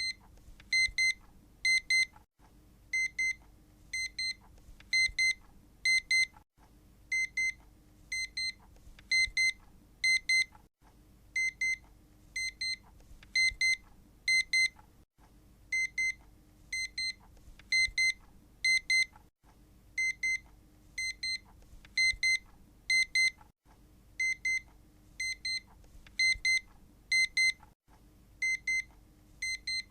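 Electronic alarm beeping at a single high pitch in quick repeating groups, about one group a second, with a brief gap every few seconds.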